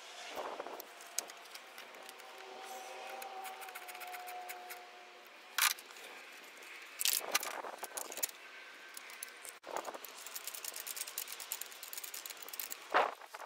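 Hand tools on a car battery's fittings: a ratchet wrench clicking on the terminal clamp and hold-down bolt, with sharp metallic clinks and clanks as the steel hold-down bracket is set in place. A fast run of ratchet clicks comes in the later part.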